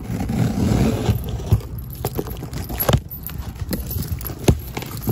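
Cardboard boxes being handled, with keys jangling and a few sharp knocks.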